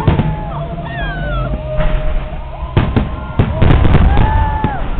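Fireworks display: sharp bangs and crackling bursts, a few at first and then a quick volley about three and a half seconds in, with gliding whistling tones rising and falling between them.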